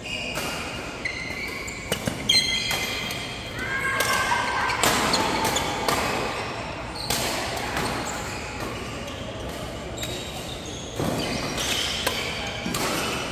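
A badminton doubles rally: sharp racket strikes on the shuttlecock, with sneakers squeaking in short chirps on the court floor.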